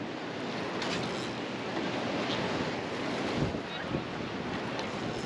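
Steady wash of ocean surf with wind buffeting the microphone. Two brief faint knocks come about three and a half and four seconds in.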